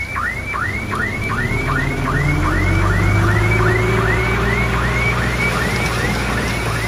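Electronic reversing alarm on heavy equipment, sounding as a rapid string of rising chirps, about three a second, over a diesel engine running underneath that rises in pitch about two seconds in.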